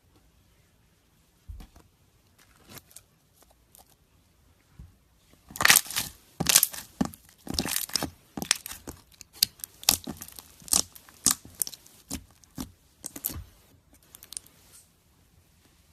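Clear jelly-like slime squished and stretched by hand. A few faint clicks come first, then from about five seconds in a dense run of sharp crackling pops for about eight seconds, which thins out near the end.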